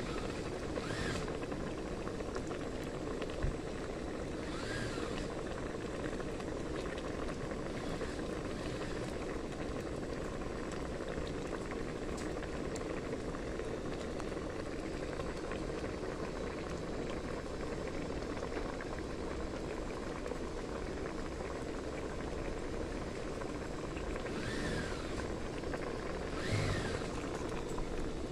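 Pot of mushroom curry boiling steadily in a metal pot, an even bubbling hiss.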